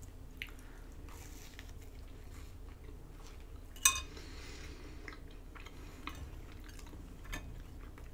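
A breadstick scraping and tapping against a glass baking dish as it mops up leftover sauce, with soft chewing. There are faint scattered clicks and one sharper clink just before the middle.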